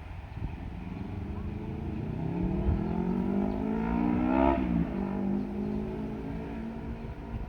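Diesel railcar engine rising in pitch as it pulls away, then dropping sharply about four and a half seconds in as it passes close by.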